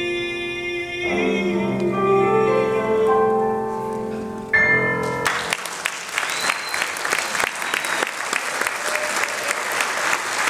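A song ends on held grand-piano chords and a sung note, with a last chord struck about four and a half seconds in; then audience applause starts and carries on.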